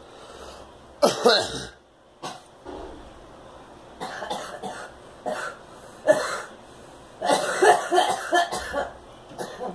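A girl coughing in repeated fits. There is a hard cough about a second in, then scattered single coughs, then a long run of coughs near the end.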